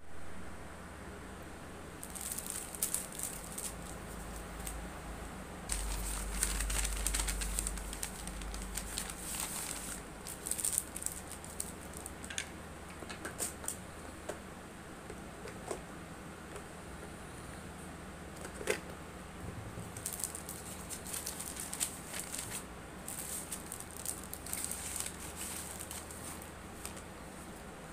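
Hands handling packaging and small items: rustling with scattered light clicks and taps, over a steady low hum. A deeper rumble joins from about six to nine seconds in.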